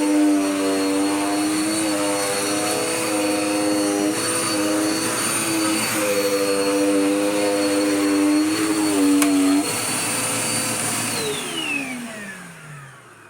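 Dirt Devil Power Max Pet upright vacuum cleaner running, its motor hum and whine shifting in pitch a few times. Near the end it is switched off and the motor winds down, its whine gliding down in pitch and fading away.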